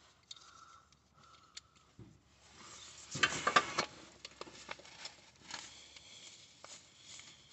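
Small metallic clicks and taps of a bolt being handled and fed by hand into the driveshaft's inner CV joint flange, with a short cluster of louder clicks about three seconds in.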